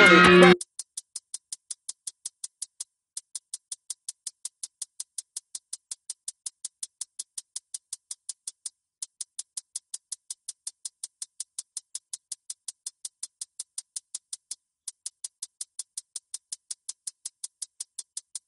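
A music track cuts off abruptly about half a second in, leaving a lone drum-machine hi-hat ticking evenly at about four ticks a second, with a short break every few seconds.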